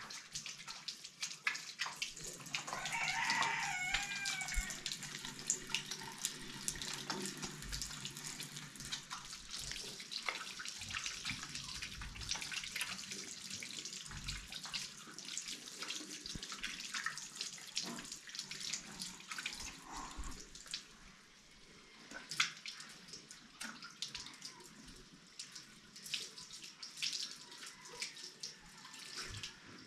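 Water running and splashing, with many small clicks and knocks throughout. A short wavering call, like a fowl's, sounds about three seconds in.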